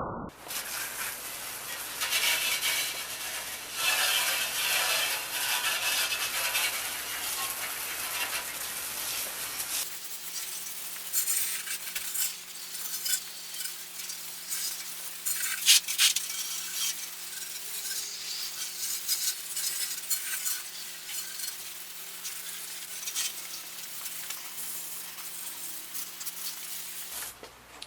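Water spraying and splashing onto a bicycle being washed: a steady hiss with uneven splashes that changes in tone about ten seconds in.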